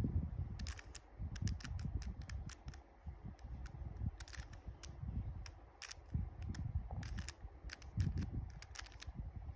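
A 3x3 Rubik's Cube being turned by hand: its plastic layers clicking and clacking in irregular clusters of quick turns, over low handling rumble.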